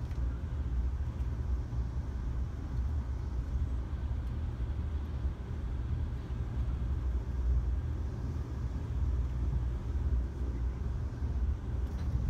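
Steady low rumble of a moving passenger train, heard from inside the car as it rolls along the track at speed.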